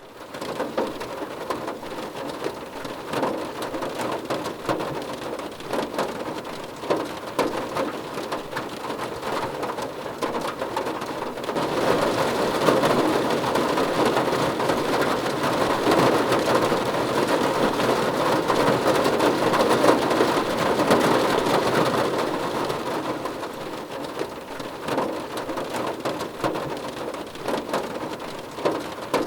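Rain pattering on a car's roof and windows, heard from inside the car as a dense hiss of many small drop ticks. It grows heavier about twelve seconds in and eases off again about ten seconds later.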